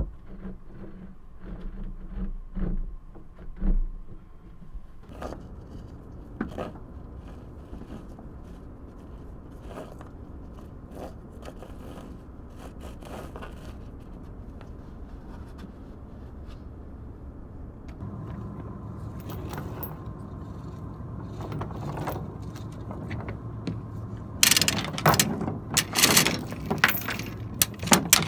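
Anchor rode being worked at a manual bow windlass, with scattered knocks and scrapes of rope and hardware. A steady hum comes in about two-thirds of the way through, and in the last few seconds there is loud metallic clanking and rattling of chain and windlass.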